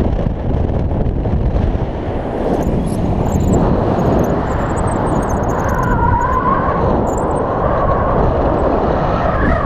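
Airflow rushing over the camera microphone of a paraglider in flight, a loud steady rumble. A faint wavering whistle joins about halfway through.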